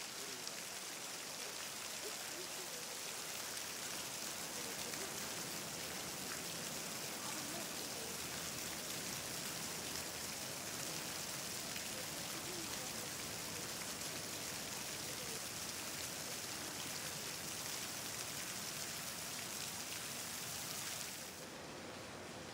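Steady hiss of water, dropping to a quieter hiss near the end.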